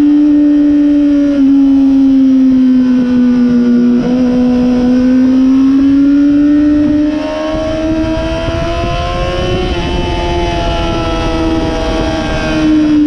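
Sport motorcycle engine heard from the rider's seat at high revs, its note rising and falling with the throttle. Heavy wind rush builds over the second half as the bike reaches speed. Near the end the rush drops away and the engine note falls as the bike slows.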